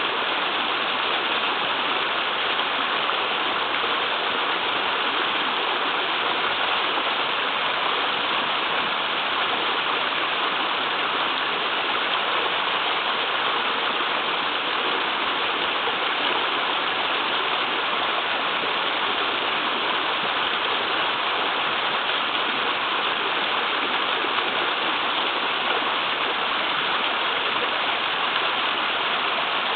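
A small waterfall on a mountain river flowing strongly, a steady rushing and splashing of water.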